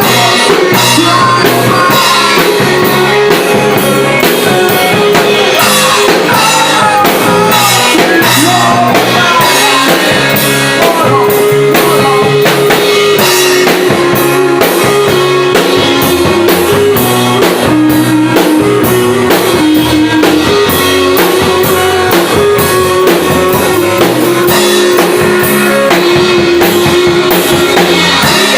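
Rock band playing in rehearsal: a drum kit keeps a steady beat under guitar, with a slow melody of long held notes coming in about a third of the way through.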